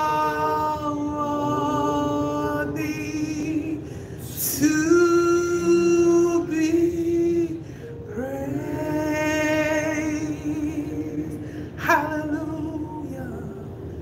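A solo voice singing a slow worship song in long held notes with vibrato, in phrases of about three to four seconds.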